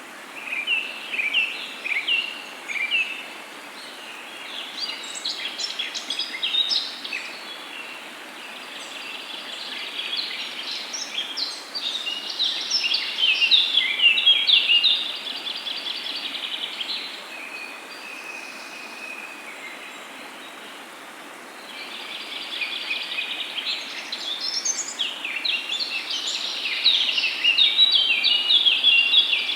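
Wild birds singing, with overlapping chirps and rapid trills that come and go, over a steady rushing hiss of flowing water.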